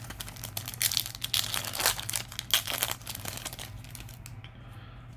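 Foil Yu-Gi-Oh! trading-card booster pack wrapper being torn open and crinkled: about three seconds of loud crackly tearing and rustling, fading to quieter handling near the end.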